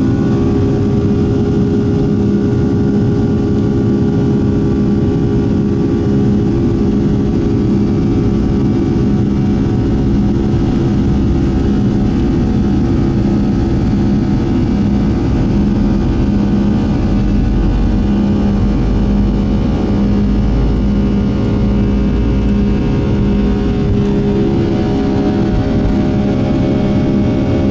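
Boeing 757-200's Pratt & Whitney turbofan engines running at full takeoff thrust during the takeoff roll, heard from the cabin over the wing: a loud, steady engine sound with several steady fan tones. A low rumble from the wheels on the runway grows stronger past the middle as the aircraft gathers speed.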